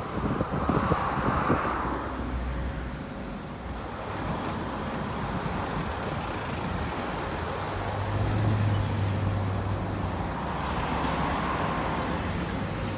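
Road traffic: cars passing with a steady noise of tyres and engines, one swelling past near the start and another near the end, with a low engine hum in between.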